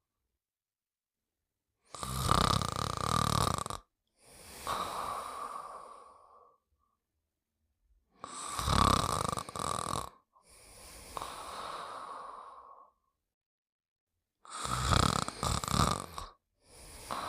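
Snoring during sleep: three loud snores about six seconds apart, each followed by a softer, longer breath.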